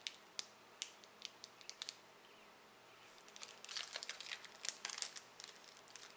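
Abba Zaba candy bar wrapper crinkling in the hands. A few separate crackles come in the first two seconds, then after a short pause a denser run of crinkling starts about three and a half seconds in.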